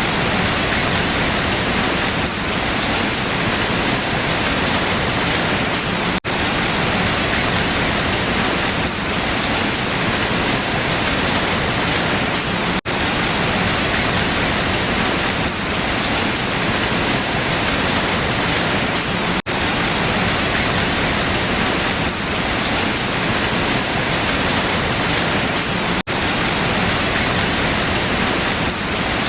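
Steady, heavy rain falling on leaves, a dense even patter, broken by a very brief dropout about every six and a half seconds.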